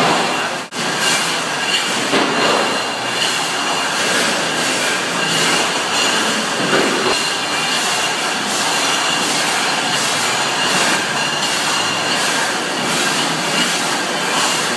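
Electric motor-driven winery pump running steadily: a loud, even machine noise with a few steady high whining tones over it, briefly dipping about a second in.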